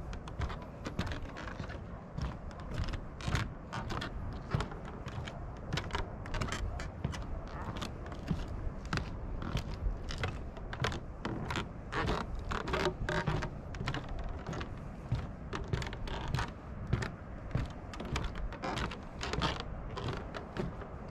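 Footsteps on a wooden boardwalk: irregular knocks and creaks of the planks, several a second, over a steady low rumble.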